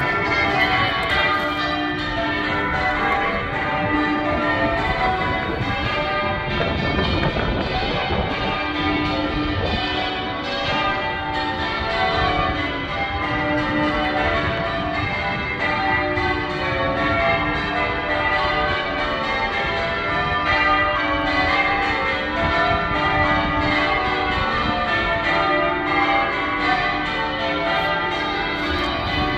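Manchester Cathedral's church bells rung in changes: a continuous, even run of bell strikes one after another, their tones overlapping and ringing on.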